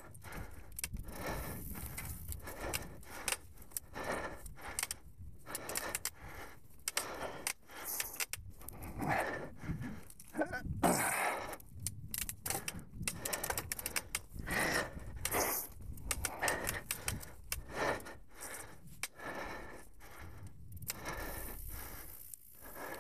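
Mountain bike rolling along a dirt singletrack strewn with dry fallen leaves: leaves crackling and rustling under the tyres, with irregular rattles and clatters from the bike over bumps.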